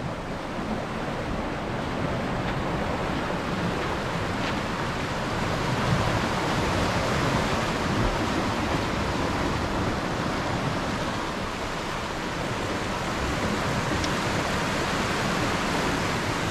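Sea surf washing and foaming among rocky shore boulders: a steady rush of water.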